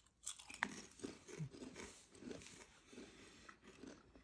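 Hand-cooked potato crisps being bitten and chewed: a sharp crunch about half a second in, then repeated crunching chews.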